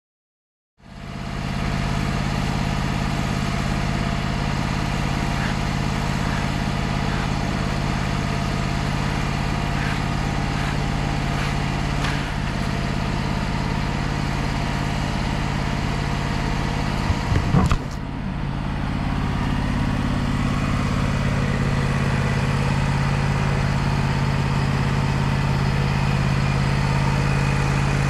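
Wood-Mizer LT35 sawmill's engine running steadily with a low hum, starting about a second in. A few quick knocks come about 17 seconds in.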